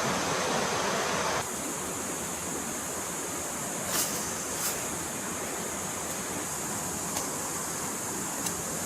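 Forest stream flowing, a steady rush of water that turns quieter and less full about a second and a half in. A few brief sharp clicks come near the middle and end.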